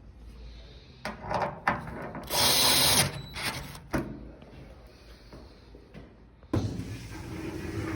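Knocks and clatter of work on a clothes dryer's drum baffle, with a short whir of a cordless drill driving a screw about two and a half seconds in. A louder steady rumble starts suddenly near the end.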